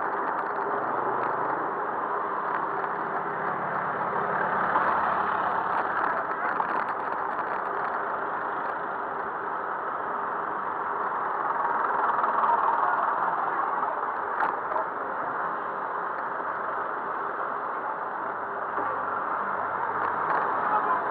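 Steady road traffic noise heard from a bicycle riding in city traffic: the engines of surrounding vehicles running, with no single event standing out.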